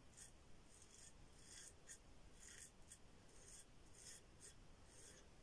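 Yuma closed-comb safety razor with a Derby blade scraping through lathered stubble on the neck: faint, short, scratchy strokes, about two a second. The blade is cutting without tugging.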